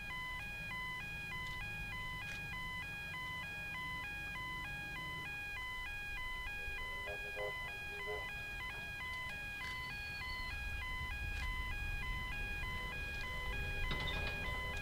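An electronic warning signal beeping steadily, alternating between two pitches in a regular repeating pattern, over a low wind rumble.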